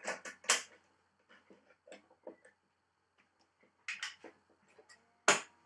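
Sharp clicks and knocks from handling a badminton racquet stringing machine, its string clamps and tension head, in uneven clusters. The loudest is a single click near the end, and a faint steady tone begins just before it.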